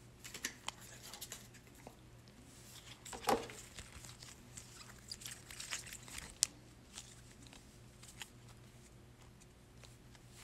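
Trading cards being handled and sorted on a table: faint scattered clicks and rustles, with a louder brush about three seconds in and a sharp click a little past six seconds.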